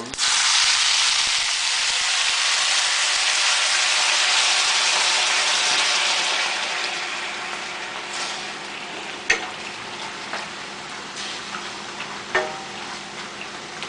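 Compound sauce poured into a hot pan, sizzling loudly the instant it hits and dying down over about six seconds to a low sizzle. A few sharp clacks, as of a utensil against the pan, come in the second half.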